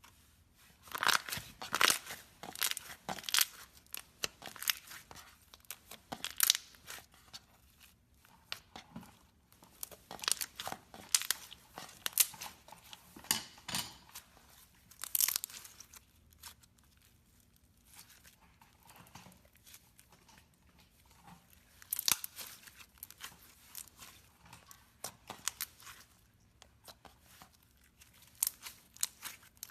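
Slime being pressed and squeezed by hand, giving irregular clusters of sharp crackles and pops, with short lulls between handfuls.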